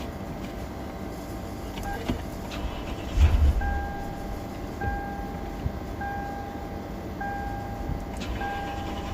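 A low thump a little past three seconds in, then a car's warning chime beeping five times at an even pace, about once every 1.2 seconds, over a steady low hum.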